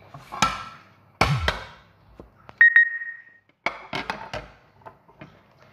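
Knocks and clatter of a metal baking pan being handled, with a brief clear ringing tone about midway.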